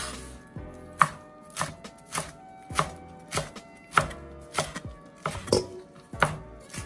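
Chef's knife chopping callaloo leaves and stems on a wooden cutting board: a steady run of sharp chops against the board, nearly two a second.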